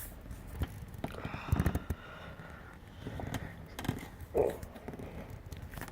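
Scattered light knocks, clicks and scrapes of a hand working inside a car's plastic brake air duct, trying to get free.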